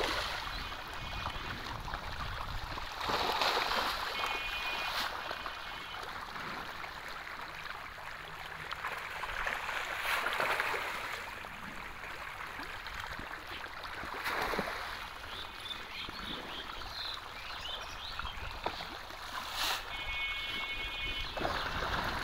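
Many fish churning and splashing at the surface of a crowded fish tank: a steady wash of disturbed water with several louder surges of splashing.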